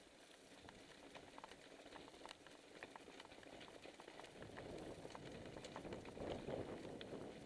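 Faint crackle of tyres rolling over the loose stones of a rocky track, with scattered small clicks of stones and bike parts rattling. A low rumble builds from about halfway.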